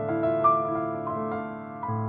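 Solo piano music: slow chords and melody notes held and ringing, with new notes struck every half second or so.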